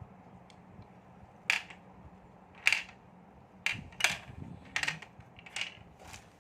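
Hard plastic toy parts being handled: about six sharp clicks and knocks at irregular intervals, starting about a second and a half in.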